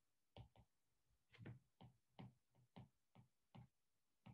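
Faint taps and ticks of a stylus tip on a tablet's glass screen during handwriting, about ten irregular clicks, two or three a second.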